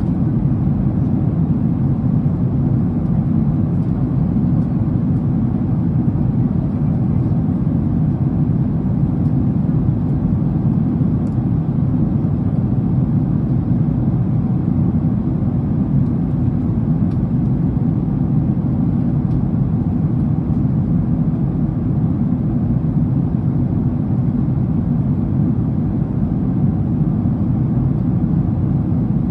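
Steady, low cabin noise of a jet airliner in cruise flight: engine and airflow noise heard inside the cabin, even throughout.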